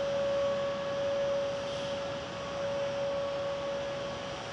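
A single steady tone, held at one pitch without rising or falling, over an even hiss of wind-like noise.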